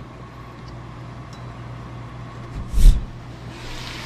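Beef simmering in a covered stainless steel pot, with a steady low hum under it. About three seconds in there is one loud, short thump as the glass lid is lifted off the pot.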